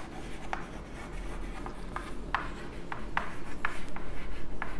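Chalk writing on a blackboard: a run of short scratches and taps as letters and numbers are written, sparse at first and then quicker and louder over the second half.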